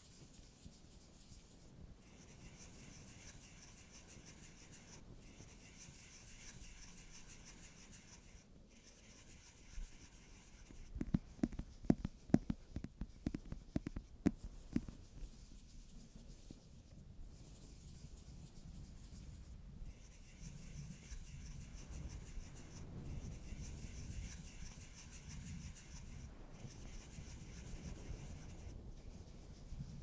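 Fingers and nails scratching and rubbing on a cardboard eyeshadow palette box, over a faint steady hiss. A run of quick, sharp taps on the box lasts about four seconds in the middle.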